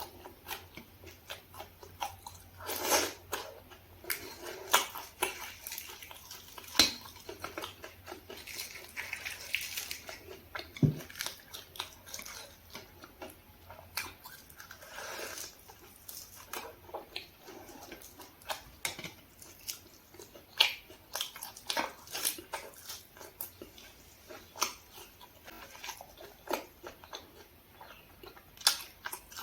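Close-up eating sounds: a person chewing and biting food, with irregular short mouth clicks and smacks.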